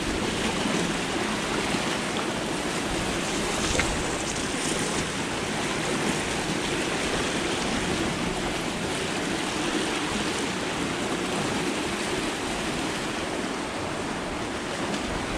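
Steady rush of churning white water tumbling through a canal channel, an even hiss with no letup.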